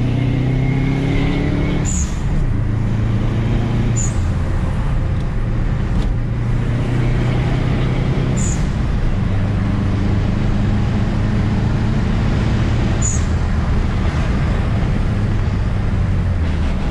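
Subaru boxer engine and road noise heard from inside the moving car's cabin: a steady low engine drone that shifts in pitch a few times as the car drives, with a few faint, short high clicks.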